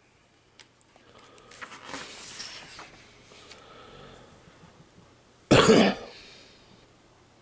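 Faint rustling of paper as a picture-book page is turned, then a single loud cough about five and a half seconds in.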